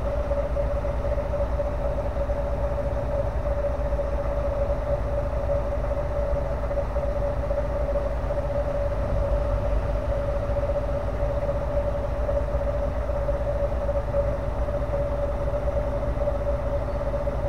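Diesel engine of a Plasser & Theurer multiple tie tamper (MTT) idling while the machine stands still: a steady low rumble with one constant hum held over it.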